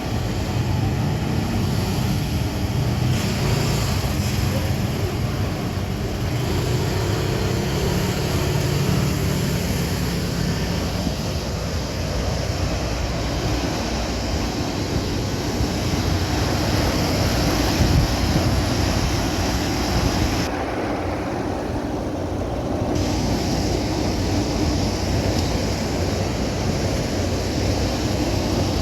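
Fans and air-conditioning units running: a steady low rumble under a whooshing hiss of moving air, with the higher hiss dropping away for a couple of seconds about two-thirds of the way through.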